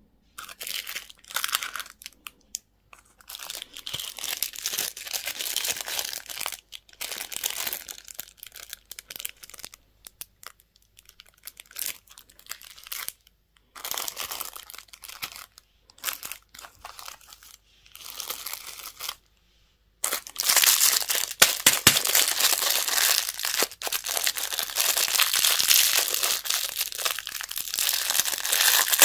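Candy wrappers crinkling and tearing as they are pulled open by hand, in stop-start bursts at first, then continuously and louder for the last third.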